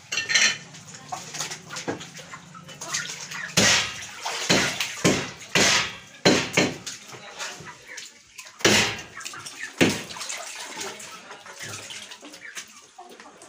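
Water sloshing and splashing, with wet squelches, as raw plucked chickens are gutted and rinsed by hand. Several loud splashes come at irregular moments, most of them through the middle.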